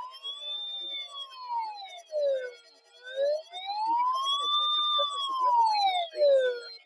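Wailing siren tone, its pitch sweeping slowly up and down about once every four seconds, with a second weaker sweep beneath it; it stops at the very end.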